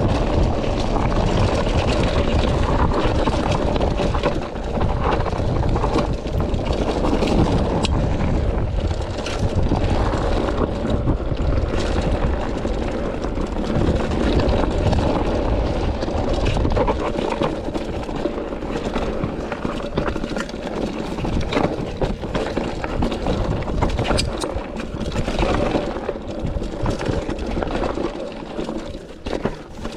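Specialized Rockhopper hardtail mountain bike rolling downhill on a rocky dirt singletrack: tyres crunching over loose stones and gravel, with the bike rattling and clattering over the rough ground throughout. Wind buffets the camera microphone.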